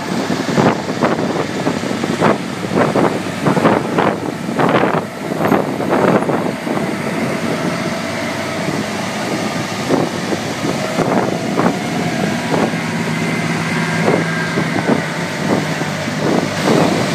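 Heavy diesel semi-trailer prime movers driving slowly past one after another with engines running, with wind buffeting the microphone in irregular gusts, mostly in the first half.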